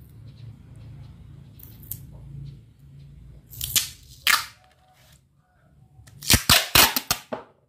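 Packing tape being pulled off the roll in loud, crackling rips: a couple of pulls about three and a half seconds in, then a quicker run of rips near the end.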